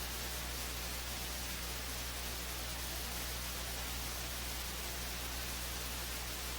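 Steady static hiss with a low, even hum: the dead air of a cable EAS relay between repeats of the recorded warning message.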